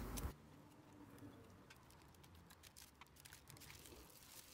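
Faint crackling and ticking of pişi dough frying in hot sunflower oil. A louder hiss cuts off suddenly at the very start.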